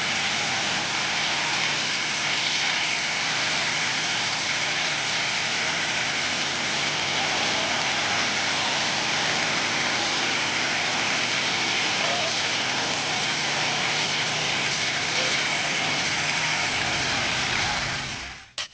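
Jet engine noise from a Boeing 737-800's CFM56 turbofans: a steady hiss-like rush with a faint high whine. It fades away just before the end and breaks off with a click.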